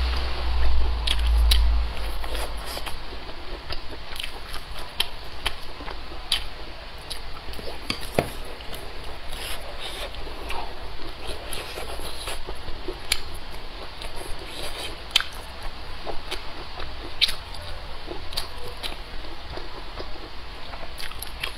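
Close-miked chewing of a grilled sausage, with many small wet mouth clicks and smacks. A low rumble sounds during the first two seconds.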